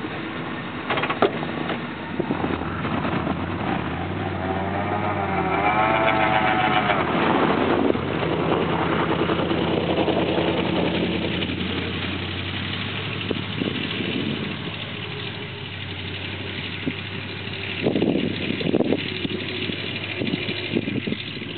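Homemade PVC air horns blowing train-horn blasts. The pitch wavers up and down for several seconds in the middle, and the blasts echo back from the woods. A steady low hum runs underneath.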